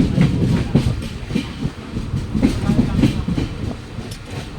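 Train running on the rails: a steady low rumble with repeated clacks of the wheels passing over rail joints.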